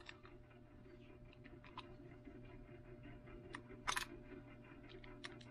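Faint handling sounds of small tools at a workbench: a few light clicks and one sharper click about four seconds in, over a steady low hum.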